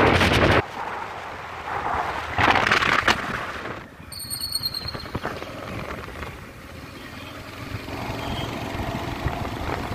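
Wind buffeting the microphone of a moving vehicle, in loud gusts at the start and again about two and a half seconds in, over steady road and engine noise. A brief high, pulsing tone sounds about four seconds in.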